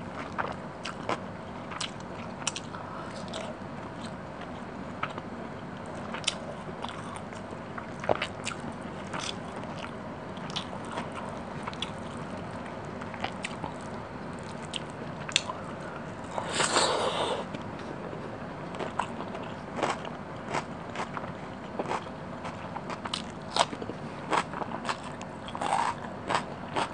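Close-miked chewing and wet mouth sounds of someone eating spicy fish curry and rice by hand: many short clicks and smacks, with one longer, louder crunchy burst about two-thirds of the way through.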